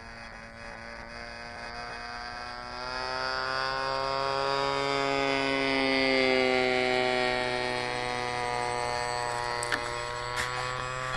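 A Hangar 9 DHC-2 Beaver RC plane's 33cc two-stroke engine flying past, a buzzing note that grows louder toward the middle and drops in pitch as it passes, over a steady low hum. A few sharp clicks near the end.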